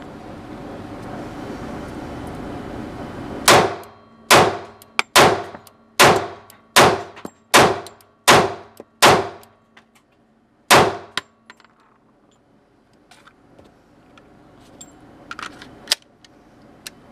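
Semi-automatic pistol fired at an indoor range: about nine shots at a steady pace of a little over one a second, then one more after a short pause, each with a ringing tail. Light clicks of the gun being handled follow.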